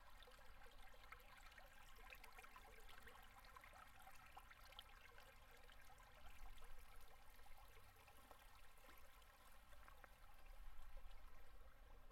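Faint gurgling and trickling of a river's low winter flow running over and under ice: a soft, steady wash of water dotted with many small irregular splashes. It swells slightly twice, about six and a half seconds in and again near the end.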